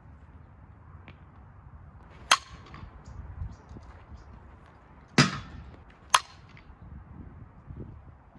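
Softball bat hitting pitched balls in batting practice: a sharp crack a couple of seconds in and another about three seconds later, followed a second after by a third sharp crack.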